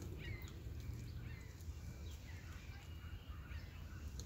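Short, high chirping calls, several of them scattered through, over a steady low rumble of outdoor background noise.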